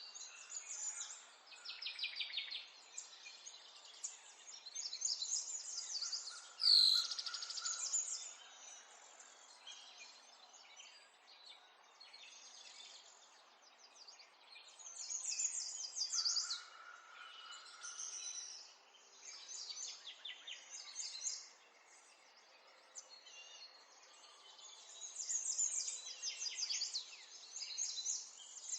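Several small songbirds singing in overlapping bouts of rapid, high-pitched trills and chirps, with a loud sharp downward note about seven seconds in.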